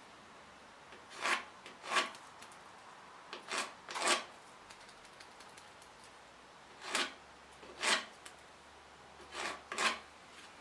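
Pencil strokes scratching across a pine board, eight short strokes that come mostly in quick pairs.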